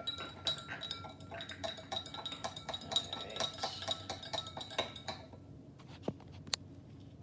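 Spoon stirring a drink in a cup, clinking rapidly against the side with a ringing tone, stopping about five seconds in; a few single taps follow.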